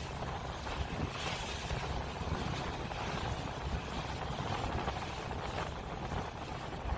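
Wind buffeting the microphone on the open deck of a ro-ro ferry under way, over the ship's steady rumble and the hiss of the sea, with the hiss briefly swelling about a second in and again near the end.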